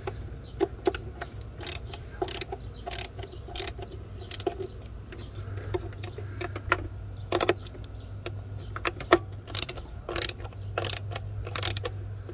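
Screwdriver with a T20 Torx bit being turned to back out the screws holding a MAP sensor, giving sharp, irregular clicks over a low steady hum.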